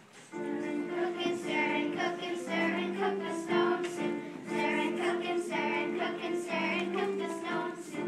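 A group of children singing a song together in held notes of about a second each.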